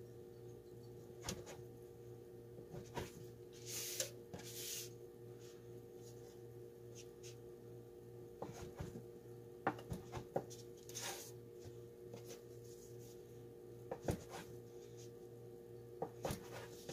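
Chef's knife cutting soft bread dough into pieces on a wooden cutting board: scattered soft knocks of the blade against the board, with a few brief rubbing sounds. A faint steady hum runs underneath.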